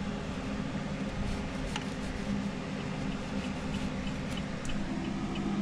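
A steady low mechanical hum, with faint light clicks scattered through it.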